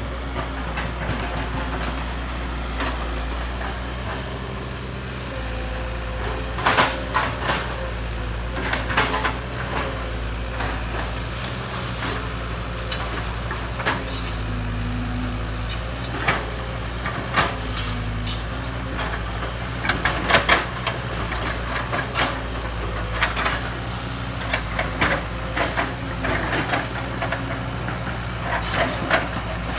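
Kobelco hydraulic excavator's diesel engine running steadily, with repeated sharp knocks from the machine at work.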